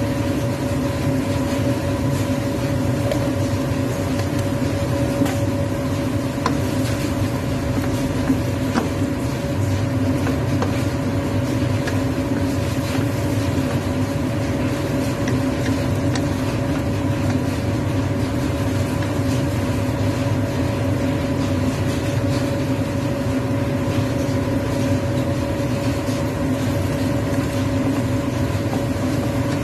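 Steady machine hum with a constant whine, over faint scrapes and taps of a wooden spatula stirring squid in a wok.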